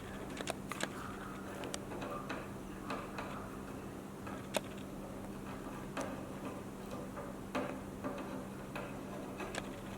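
Irregular light clicks and taps of hand tools on an LED screen module while a driver IC is being desoldered and lifted off, over a steady low hum.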